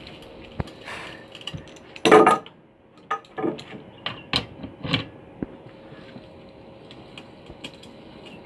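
Steel band saw mill blade-tensioner parts (welded square-tube housing, threaded rod and nut) clanking and clicking as they are handled, with a loud metal clatter about two seconds in and a run of knocks over the next few seconds, then quieter. A faint steady hum underneath.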